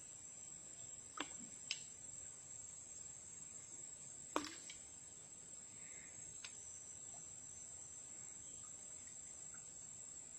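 Crickets or similar insects making a steady high-pitched drone, with a few sharp clicks or knocks about a second in, just under two seconds in, a louder one about four and a half seconds in, and a faint one near six and a half seconds.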